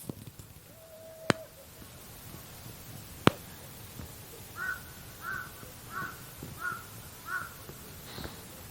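Two sharp clicks in the first few seconds, then a crow cawing five times in an even series.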